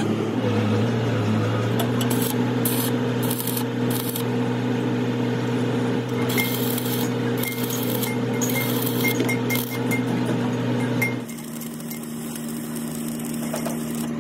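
Stick (arc) welding on the steel of an excavator bucket: the crackle and hiss of the arc over a steady electrical hum. The sound drops quieter, and the hum changes, about eleven seconds in.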